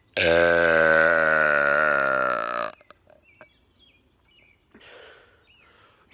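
A man's long, loud, deliberate burp, held at a fairly steady pitch for about two and a half seconds before cutting off.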